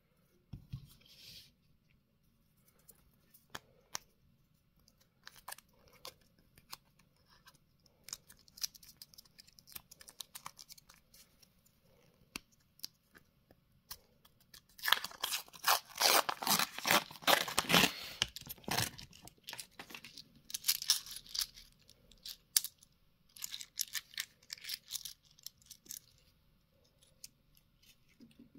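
A paper coin-roll wrapper holding 2-euro coins being torn open and peeled off by hand: crinkling and ripping paper with scattered sharp clicks. The loudest, densest tearing comes a little past the middle, followed by shorter bursts of crinkling.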